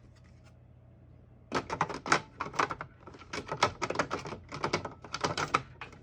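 1974 Adler J2 manual portable typewriter being typed on: after a short pause, a run of rapid key strikes in quick bursts of clacks.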